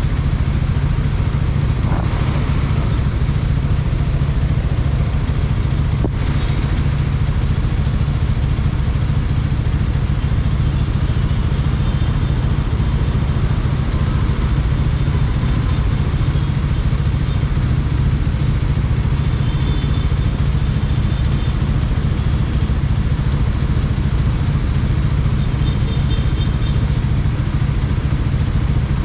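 Bajaj Dominar 400 single-cylinder engine running steadily under a rider-mounted camera, with a strong low rumble that holds level throughout. A brief click about six seconds in, and faint high-pitched tones come and go in the second half.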